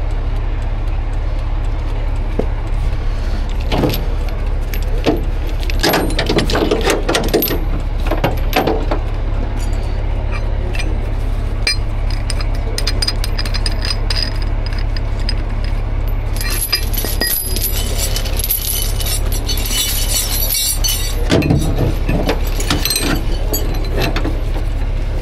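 Heavy steel recovery chain clinking and rattling in bursts as it is handled and wrapped around a truck axle, over the steady low hum of an idling vehicle engine.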